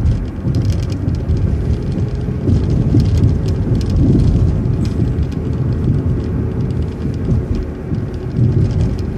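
City bus in motion, heard from on board: a steady low rumble of engine and road noise with a faint constant whine and light rattles.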